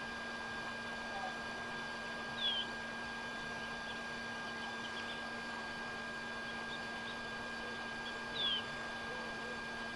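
Two short, high bird chirps falling in pitch, one a couple of seconds in and one near the end, with a few fainter chirps between, over a steady hiss and low hum.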